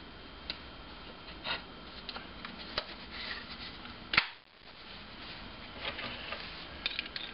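Scattered light knocks, clicks and rubs of wooden jig pieces being handled and turned over in the hands, the sharpest click a little past halfway, over a steady low background hum.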